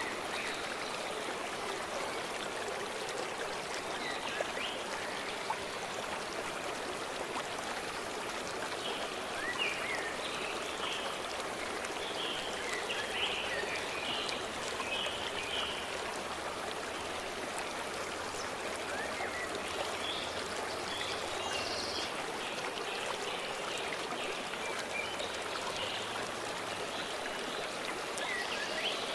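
Stream flowing with a steady rush of water. Small birds chirp and sing now and then over it, most often in the middle and later part.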